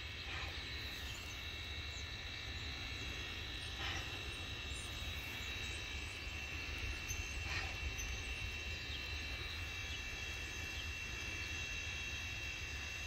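Narrow-gauge steam locomotive working slowly in the distance, over a steady low rumble, with a soft exhaust puff every three to four seconds.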